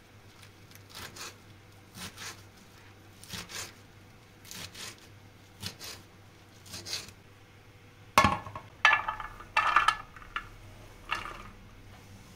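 A kitchen knife chopping spinach on a glass cutting board, in soft pairs of strokes about once a second. About eight seconds in come louder scrapes and knocks as the glass board is tipped against a stainless steel pot and the chopped spinach is pushed into it.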